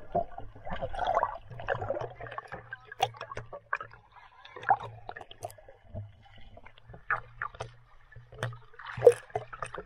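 Swimming pool water splashing and sloshing in irregular bursts, with sharp slaps scattered through it, as people swim.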